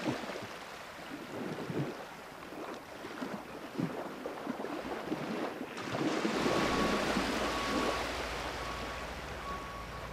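Wind and waves: a steady rush of noise with soft swells, growing louder with a low rumble beneath about six seconds in. A faint tone comes and goes in the last few seconds.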